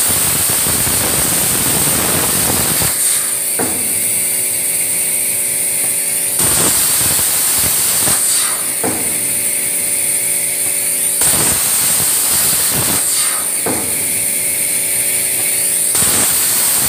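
A CNC plasma cutter's torch is cutting aluminum sheet, giving a loud, harsh, steady hiss with a high whine. The sound changes character about every two to three seconds. It alternates between a dense full hiss and a thinner hiss with a low hum, as the torch finishes one cut and starts the next.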